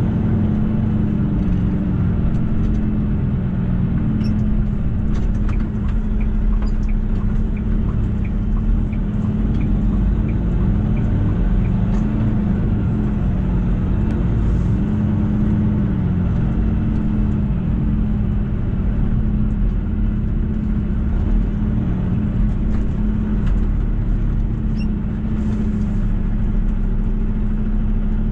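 Semi truck's diesel engine running at low road speed, heard inside the cab as a steady drone whose pitch wavers a little as the truck slows and turns. For several seconds in the first third a turn signal ticks about twice a second.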